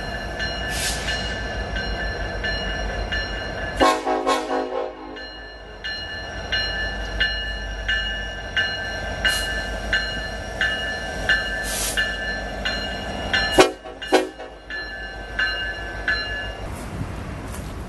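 Freight train of autorack cars passing close, led by a Union Pacific diesel locomotive: wheels click over rail joints about twice a second under a steady high-pitched tone held through most of it, with louder clattering about four seconds in and again near fourteen seconds.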